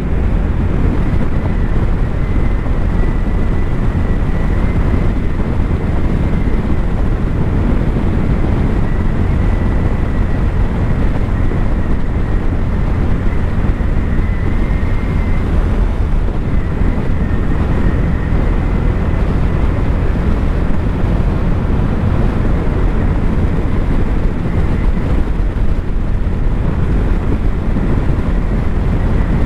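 Motorcycle riding at speed: wind rushing over the camera microphone and the engine running steadily beneath it, with a faint high whine that comes and goes.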